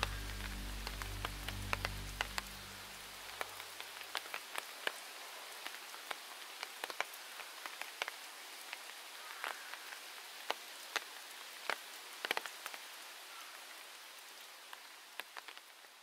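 Rain falling in a forest: a steady hiss with frequent sharp single drops landing, the whole fading out near the end.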